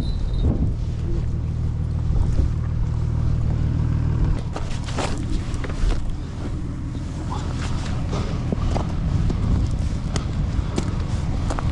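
A vehicle engine running low and steady, with wind buffeting the microphone. After about four seconds the even hum gives way to a rougher rumble with scattered clicks and knocks.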